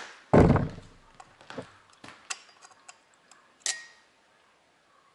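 Metal tools being handled at a milling machine vise: a heavy thump, then a string of lighter clicks and knocks, the last one, a little before four seconds in, with a short metallic ring.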